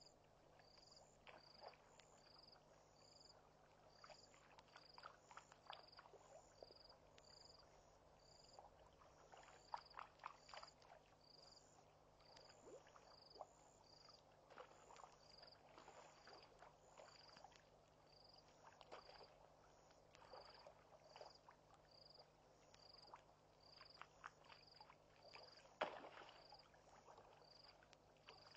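Faint night ambience at a waterhole: an insect chirps high and steady, a little over once a second, over scattered short soft clicks and a low electrical hum. A single sharper knock near the end is the loudest sound.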